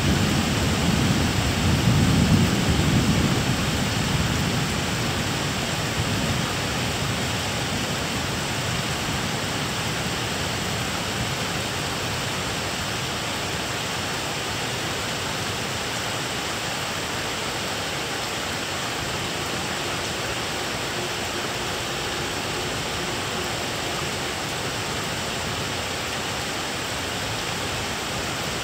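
Thunder rumbling low and dying away over the first several seconds, leaving the steady hiss of rain.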